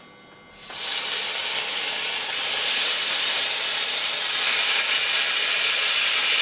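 Wine-marinated beef chunks sizzling as they go into hot olive oil in an enamelled cast-iron casserole to be seared. The sizzle starts about half a second in, comes up quickly and holds as a loud, steady hiss.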